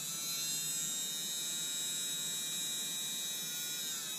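Small DC motor of a Panasonic EY503 cordless screwdriver, run on a bench power supply with its bronze bush bearings freshly oiled, giving a steady high-pitched whine. Near the end its pitch drops as the motor slows.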